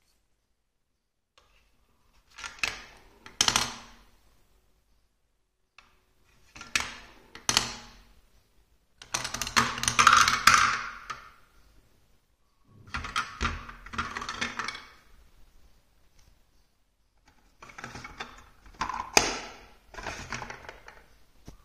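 Plastic balls rolling and clattering through a plastic building-block marble run: five separate runs, each a rattle of rolling with sharp clicks as the balls drop and knock against the chute pieces.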